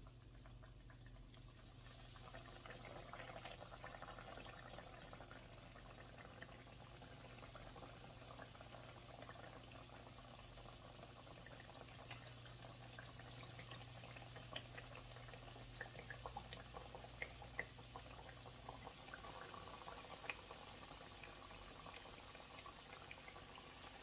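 Faint sizzling of breaded chicken tenders frying in hot oil, with scattered small pops that grow busier about halfway through as the pan fills with chicken.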